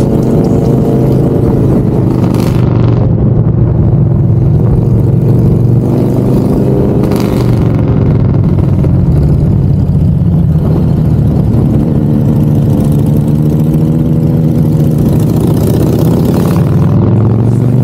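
Motorcycle engine running on the move, its pitch rising and falling with the throttle. It dips about halfway through and climbs again near the end.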